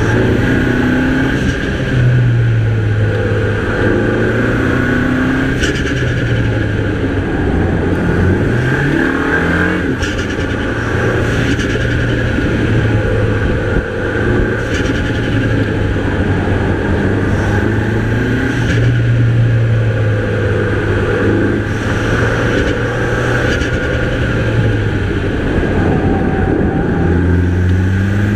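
Mini Cooper's 2.0-litre turbocharged four-cylinder engine pulling hard on a twisty road, the revs repeatedly climbing and dropping back through gear changes and corners.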